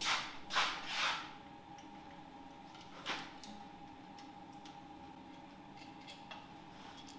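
Hand tools working on a VR6 engine's secondary air injection parts: three short rasping scrapes in the first second or so, another about three seconds in, then a few faint ticks, over a steady faint hum.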